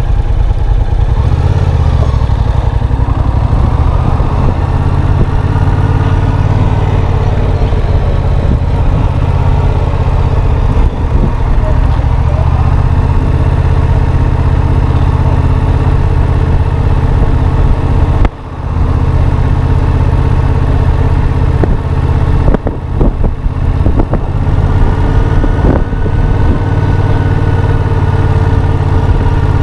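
Yamaha FZ-07's parallel-twin engine running steadily at low revs, with a brief drop in level about eighteen seconds in.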